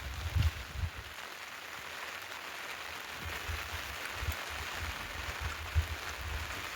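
Steady rain falling, an even hiss, with a few short low thumps scattered through it.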